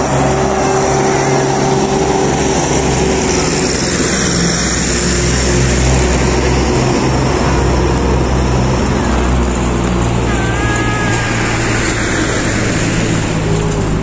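Steady noise of car traffic on a road: engines and tyres running without a break.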